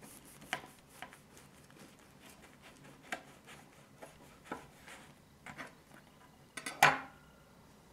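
Knife sawing down through the crisp crust of a freshly baked white loaf, giving scattered short crackles of breaking crust. A louder crack comes near the end as the cut goes through.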